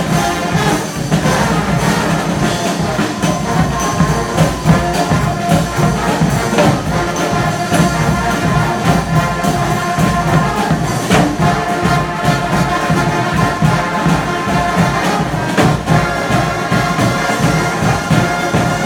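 Brass street band playing, horns sounding held notes over a steady percussion beat.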